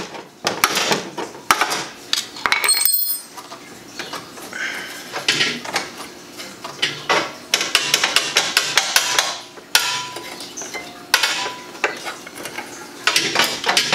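Handling noise from the plastic clips, wiring and metal brackets on a BMW E36 radiator support being worked loose by hand: an irregular run of clicks, knocks and clinks. A brief high squeak comes about three seconds in.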